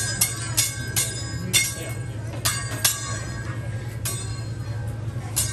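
Teppanyaki chef's steel spatula and fork clinking against each other and the flat-top griddle: sharp, irregular metallic strikes with a brief ring, one or two a second, over a steady low hum.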